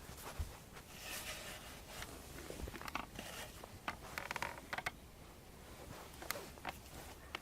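Rustling with scattered sharp clicks and scrapes, as of something being handled, with two longer rustling stretches, one about a second in and one about four seconds in.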